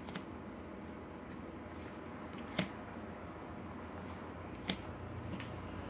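Tarot cards being handled, one card pulled off the front of the deck and slid onto the back. It makes a few short, sharp card clicks, the two loudest about two seconds apart, over a steady faint hiss.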